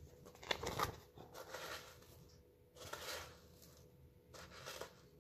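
Paper picture book rustling and handled as it is held up and moved. There are a few short, quiet rustles, and the loudest comes about half a second in.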